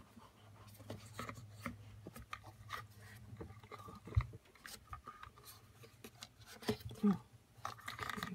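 Hands handling a clear plastic watch display case: scattered light clicks, taps and rubbing of fingers on plastic, with a sharper knock about four seconds in.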